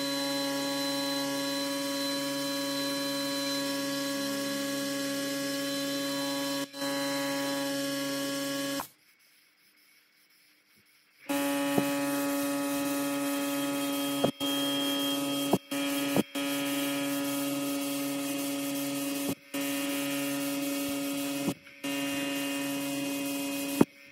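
Compressed-air paint spray gun and its air supply running steadily: a hiss over a constant pitched hum. It stops for about two seconds a third of the way in, then resumes, cutting out briefly several times.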